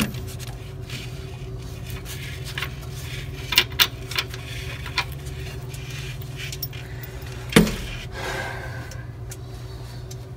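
Small metal parts clinking and knocking against a steel chassis frame as they are handled and set down. There is a pair of clicks about three and a half seconds in and a sharper knock about seven and a half seconds in, over a steady low hum.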